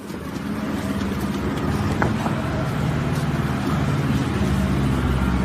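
Steady engine and road drone of a moving car, with a constant low hum.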